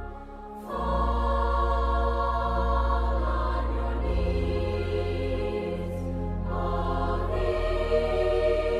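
Background music: a choir-like chorus holding long chords over a steady low drone, the chord shifting a few times.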